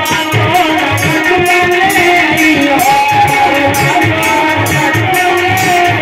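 Indian folk song amplified over a loudspeaker: a singing voice over a steady drum beat with crisp percussion strokes.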